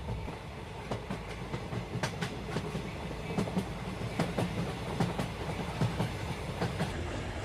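A train rolling on rails: a steady low rumble with irregular clattering clicks of the wheels over rail joints.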